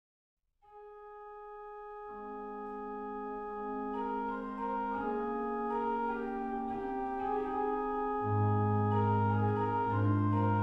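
Organ music of slow, sustained chords that begin softly about half a second in and build, with more voices joining around two seconds and a low bass line entering near the end.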